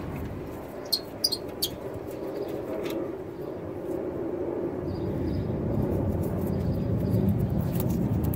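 A few light metal clicks as the freshly removed brake caliper bolt and its socket are handled, then a low steady vehicle rumble that grows louder through the second half.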